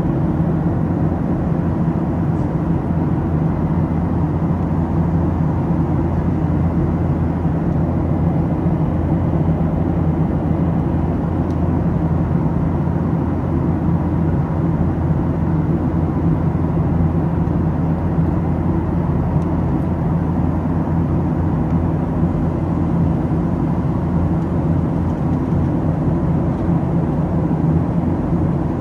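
Steady cabin noise of a Boeing 737-700 in cruise flight: a constant low rumble of air rushing past the fuselage together with the hum of its CFM56-7B engines, with a faint steady whine above it.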